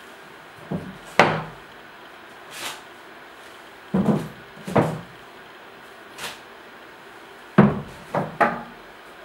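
Bundles of banknotes being set down and dropped into a hollow plastic currency box, giving a series of short dull knocks and thuds in irregular groups, about nine in all.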